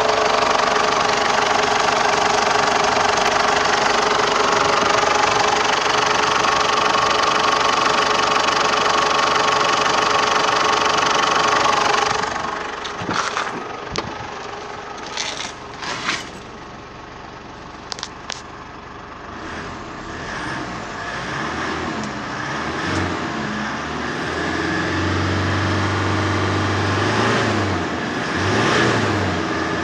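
2008 Mazda BT-50's 3.0-litre four-cylinder turbo diesel running, heard loud and close at first, then quieter after about 12 seconds, with a few clicks and knocks. Near the end the engine is held at raised revs, around 3,000 rpm, as a steady low drone that dips briefly a couple of times.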